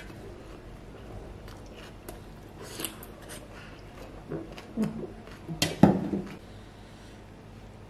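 Close-up chewing of a mouthful of fresh leafy greens and rice noodles, with small wet mouth clicks and crunches. About five and a half seconds in, a sharp knock, the loudest sound: the ceramic sauce bowl set down on the tray.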